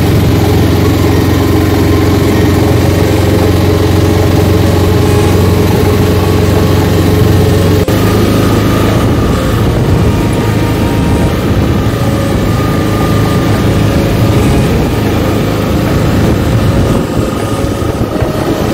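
Auto-rickshaw's small engine running steadily as it drives along at speed, with road and wind noise, heard from inside the open passenger cabin.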